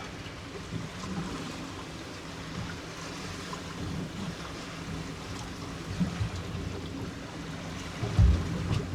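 Choppy sea slapping and washing against a small boat's hull, with wind noise and a loud low thump about eight seconds in.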